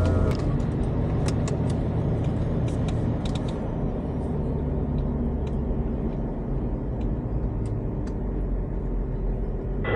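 Steady engine and road drone heard inside a moving SUV's cabin, with occasional light clicks.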